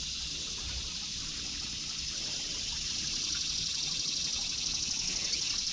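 Steady high-pitched outdoor hiss with no clear single event, growing slightly louder in the second half.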